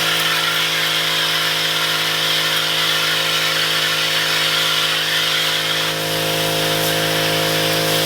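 Battery-powered Jet Gun coil cleaner running: its pump motor gives a steady whine while the water jet sprays with a hiss.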